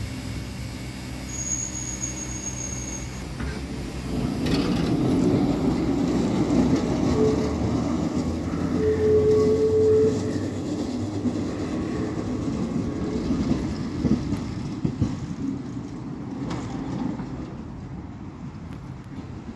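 Vintage Type K tram pulling away and running along the rails: a rumble that grows louder about four seconds in, with short squeals from the wheels around the middle, then fading as it moves off.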